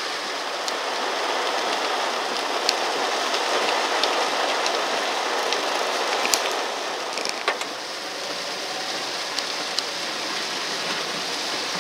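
Steady heavy rain on a car's roof and windshield, heard from inside the car, with the wash of water under the wheels on a flooded road. Scattered sharp ticks of single drops land throughout.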